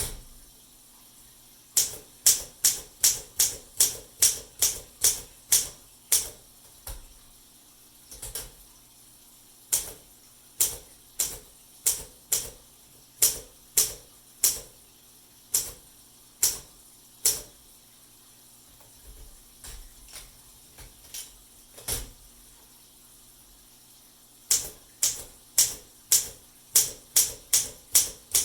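1955 Olympia SM3 manual typewriter being typed on: sharp keystrokes in quick runs of about three a second, broken by short pauses.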